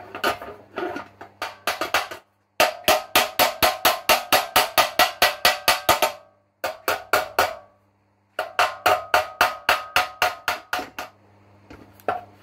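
Rapid, evenly spaced hammer blows on a sheet-steel seat-box panel being knocked into shape, about five a second, each with a short metallic ring. The blows come in runs, lighter and more irregular at first, and the sound cuts out abruptly twice.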